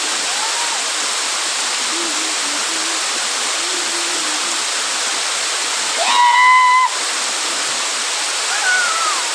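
Waterfall rushing steadily, a constant hiss of falling water, with faint voices underneath. About six seconds in comes a short, loud, high-pitched call lasting under a second.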